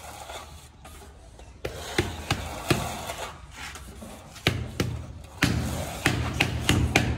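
Irregular knocks and scraping from wall-tiling work, with tools tapping and rubbing on ceramic tile and mortar. The knocks come more often in the second half.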